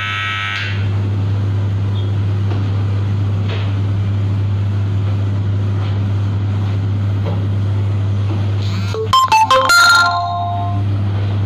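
A deck oven's electronic timer buzzer cuts off just after the start, over a steady low hum. About nine seconds in, a metal baking tray of baked buns scrapes and clatters with a ringing clank as it is pulled out of the oven deck.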